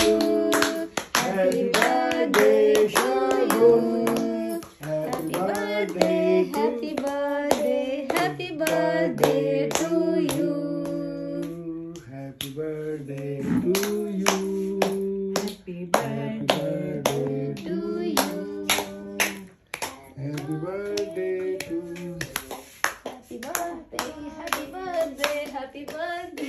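A few people singing a birthday song together, with hands clapping steadily in time.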